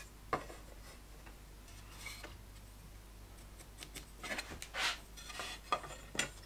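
Pencil strokes scratching marks on wood, with a few sharp light knocks as a steel rule and a round wooden dowel are handled on the workbench, one near the start and two close together near the end.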